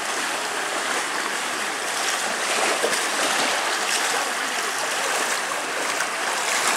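Water running down the water slides and pouring out of their chutes into the splash pool: a steady rushing and splashing.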